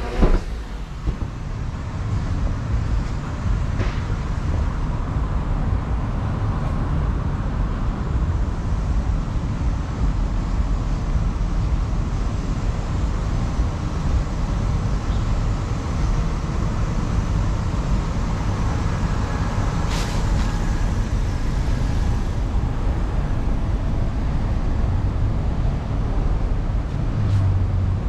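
Steady rumble of city road traffic, with a few short sharp clicks.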